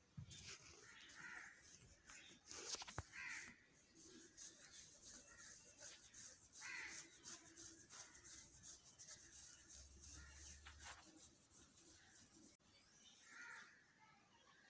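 Faint outdoor ambience with a few distant bird calls, short harsh calls spaced several seconds apart, over light rustles and clicks.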